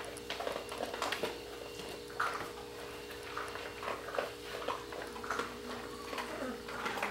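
Border collie puppies making small squeaks and yips amid scuffling mouthing clicks, with a short curving whine about six seconds in. A steady low hum runs underneath.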